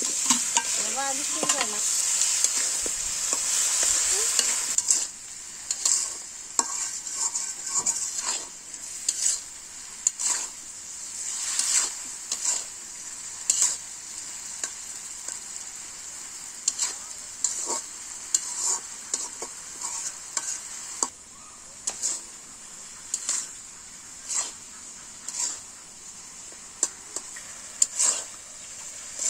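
Metal spatula stirring and scraping spiced mango pieces frying in oil in a metal karai, as mango pickle is cooked. Loud sizzling for the first five seconds or so; then the sizzle drops and the spatula scrapes the pan in short strokes about once a second.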